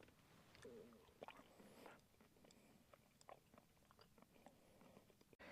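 Near silence with faint chewing and small scattered mouth clicks.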